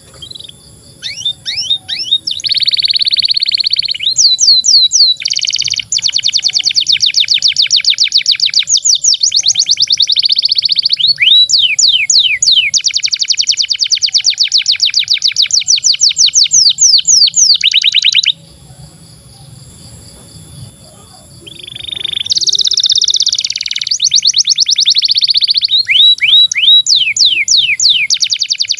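Domestic canary singing a long song of fast, tightly repeated trill notes. It breaks off for a few seconds past the middle, then starts again.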